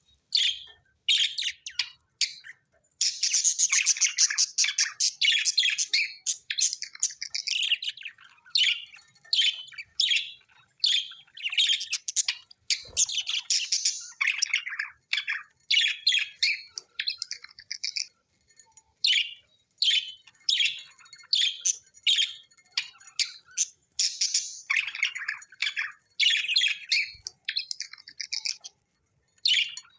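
Budgerigars chirping and warbling in rapid bursts of chatter, broken by short pauses, with a dense stretch of chatter a few seconds in.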